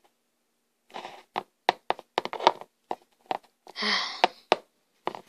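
Hard plastic toy pony figures tapped and walked across a hard floor, giving a run of about a dozen sharp, irregular clicks. A short breathy sound comes about four seconds in.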